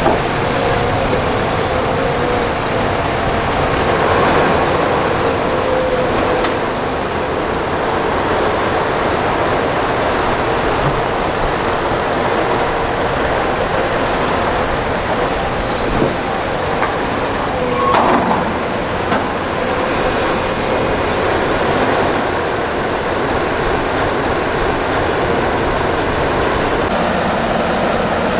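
Volvo excavator's diesel engine running steadily under load, with a whining tone over the first several seconds and a couple of sharp knocks about two-thirds of the way through.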